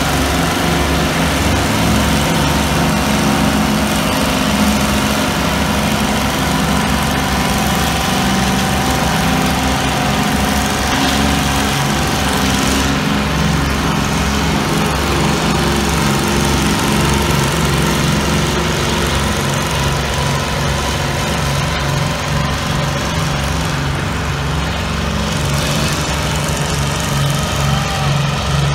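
Two John Deere farm tractors hitched in tandem, their engines running steadily under heavy load as they drag a weight-transfer pulling sled.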